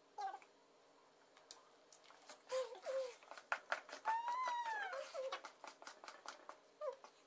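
Spoon stirring thick cake batter in a stainless steel bowl, with scattered clicks and scrapes against the metal. Over it come a few short high vocal sounds and, about four seconds in, a longer voice-like call that rises and then falls in pitch.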